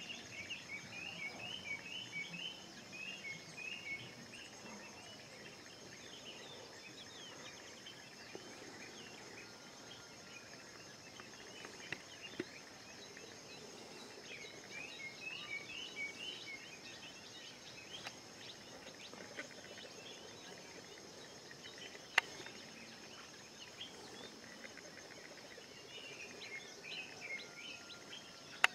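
Outdoor ambience of birds calling in runs of quick, rapid chirps that come and go three times, over a steady high-pitched whine. A few sharp clicks stand out: a small one before the middle, and two louder ones, past the middle and at the very end.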